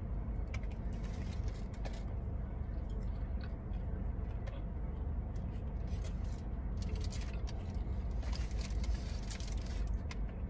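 Steady low hum of a car idling, heard inside the cabin, with scattered crunching and chewing from bites of fried avocado in several short clusters.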